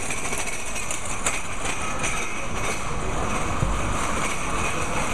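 Steady outdoor street noise, a continuous low rumble with hiss, with one brief low thump about three and a half seconds in.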